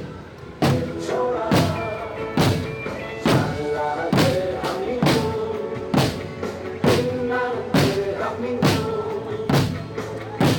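A large drum beaten at a steady march pace, a little more than one stroke a second, with held pitched tones sounding between the strokes.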